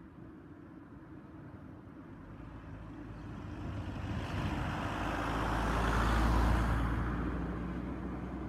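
A car driving past: its engine and tyre noise grow steadily louder, peak about six seconds in as it passes close by, then fade.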